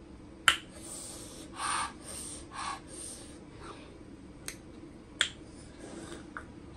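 Close-up eating sounds from a person eating very spicy noodles: a sharp mouth click about half a second in, then two short breathy hisses, and a few lighter clicks later.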